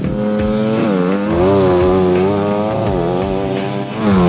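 Motocross dirt bike engine revving hard with a buzzing note that is held up, sags in pitch a couple of times and climbs back.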